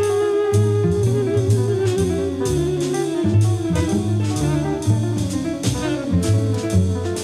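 Jazz ensemble playing. A saxophone holds a long note that wavers and sinks slightly over the first few seconds, over a bass line whose notes change about twice a second and regular drum-kit cymbal strokes.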